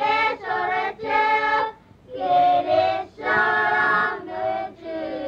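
A small group of girls singing unaccompanied, a Chuukese island song sung in short held phrases of about a second each, with quick breaths between them.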